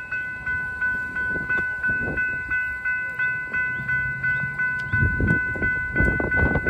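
Railroad grade-crossing warning bell ringing steadily, about three strokes a second, as a SunRail commuter train approaches. From about five seconds in, a low rumble grows louder.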